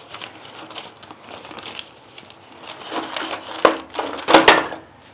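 A sheet of paper being folded and handled, rustling and crinkling, with the loudest crinkles about three to four and a half seconds in.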